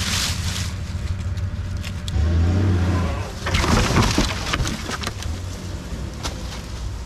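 Pickup truck engine running as it pulls a fallen log on a tow strap, rising in level about two seconds in. Around three and a half seconds in, the log and its branches drag and crash through dry leaves and brush.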